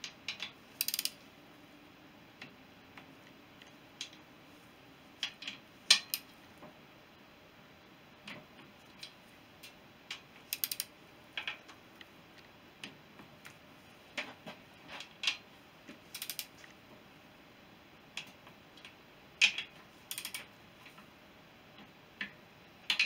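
Ratchet torque wrench tightening the bolts that join the Honda CB350 crankcase halves, working round them in sequence: light ratchet ticks and sharp clicks every few seconds, the loudest about six seconds in and again about nineteen seconds in.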